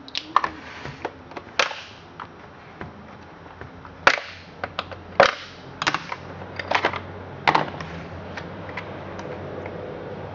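Plastic top cover of a Husqvarna 357 XP chainsaw being unlatched and lifted off to get at the air filter: a scatter of sharp clicks and knocks, the loudest between about four and eight seconds in.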